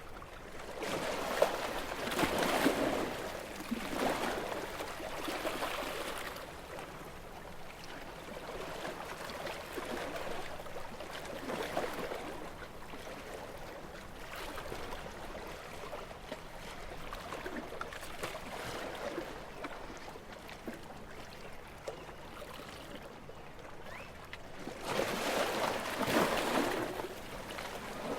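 Gentle sea waves washing in and drawing back in swells a few seconds apart, loudest about two seconds in and again near the end.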